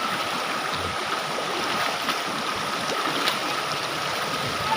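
Rushing water of a waterfall and its stream: a steady, even hiss of falling and flowing water.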